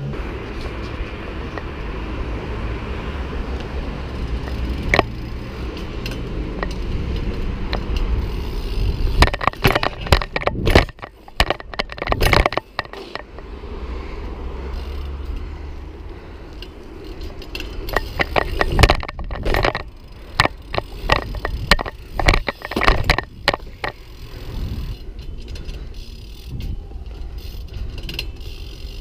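BMX bike ridden on asphalt and concrete: steady tyre rolling noise, broken by clusters of sharp knocks, clatter and scrapes from hops, landings and grinds, about nine seconds in and again about eighteen seconds in.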